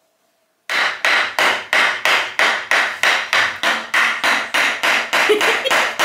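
Hammer striking over and over in rapid, even blows, about four a second, starting just under a second in.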